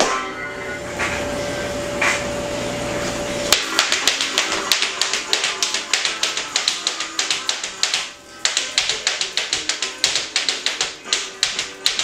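Tap shoes striking the floor in quick rhythmic runs of clicks over ragtime music. For the first few seconds the music holds a long note with only a few taps, then the taps come thick and fast, with a brief pause about eight seconds in.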